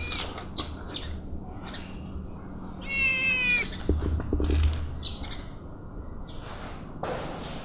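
A kitten meows once, a short, slightly falling cry about three seconds in, amid many short, high chirps and clicks throughout.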